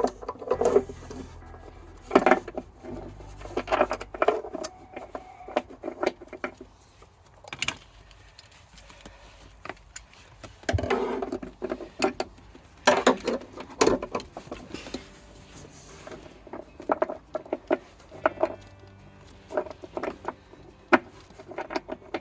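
Irregular clicks, clinks and knocks of hand tools and metal hardware being handled while a car battery is fitted into its tray.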